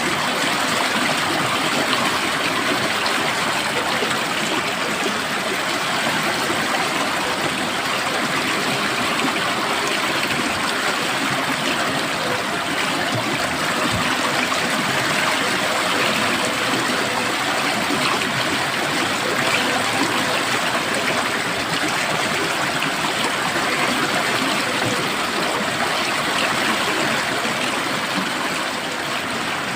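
Stream water flowing steadily, a continuous rushing and trickling with no pauses.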